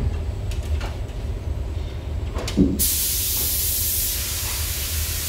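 A gravity-feed paint spray gun starts spraying about halfway through: its compressed air and atomised paint make a sudden, steady high hiss. A constant low hum runs underneath.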